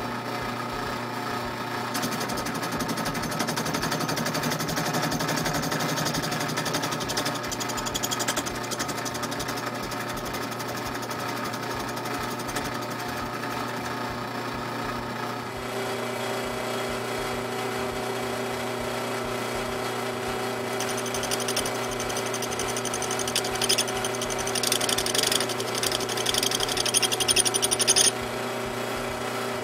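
Drill press motor running steadily, spinning a rubber hockey puck on a bolt while a hand-held chisel shaves its rim down like a lathe cut, with a rasping scrape over the motor hum. The machine's tone shifts about halfway through, and in the last third the scraping comes in short bursts.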